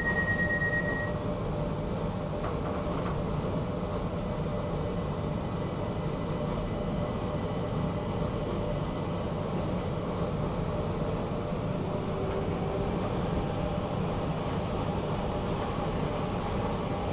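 Stockholm metro train running, heard from inside the carriage as a steady rumble. A high steady tone stops about a second in.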